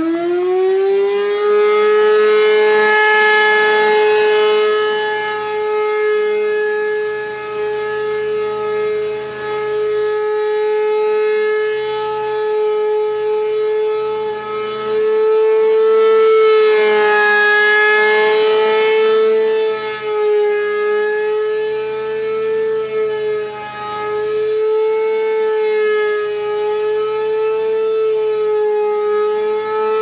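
B&N Mobil Directo BN52G gasoline-engine-driven rotating siren finishing its wind-up about a second in, then sounding one steady loud wail. Its loudness swells and dips as the horn turns.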